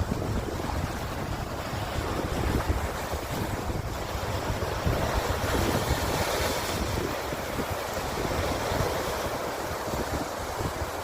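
Sea waves washing on the shore, with wind gusting on the microphone.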